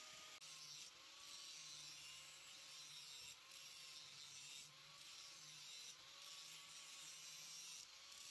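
Handheld angle grinder grinding the steel housing of a ball joint: a steady grinding hiss over the motor's whine, which drops slightly in pitch as the disc bites and then wavers up and down with the pressure. The grinding lets up briefly several times.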